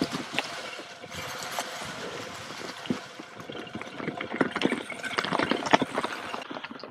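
Mountain bike rolling over a rough, stony trail: irregular clicking and rattling from the bike over a steady hiss of tyres, growing busier in the second half.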